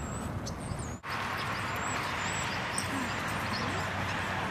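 Steady outdoor background noise with a low rumble, and faint high chirps of small birds. The sound drops out for an instant about a second in, then carries on.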